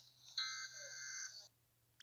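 Emergency Alert System SAME header data burst: about a second of harsh, buzzing electronic screech starting about half a second in, then cutting off to a near-silent gap.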